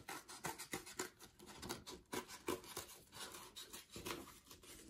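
Small scissors snipping through folded construction paper: a quiet run of short, irregular snips, a few a second, with light paper rustling.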